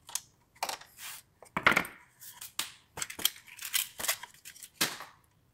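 Yellow-handled hand scraper scraping the old wooden lantern frame in short, irregular strokes, about a dozen of them, stopping just before the end.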